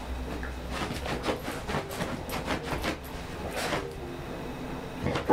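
A dog sniffing and nosing at a shaggy rug: runs of short, quick sniffs with rustling, in irregular clusters.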